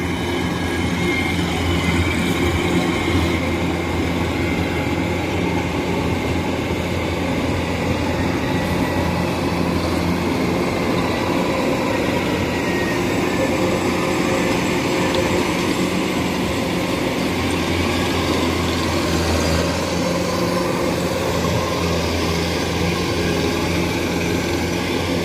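Tracked rice combine harvester running steadily at working speed, a constant engine hum with the clatter of its cutting and threshing machinery.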